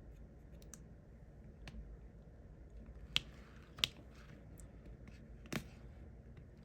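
Light clicks and ticks of small plastic diamond-painting pieces and tools being handled, with three sharper clicks in the second half.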